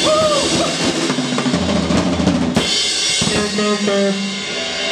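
Live rock band playing: a drum kit with bass drum, snare and cymbals, under sustained electric guitar notes.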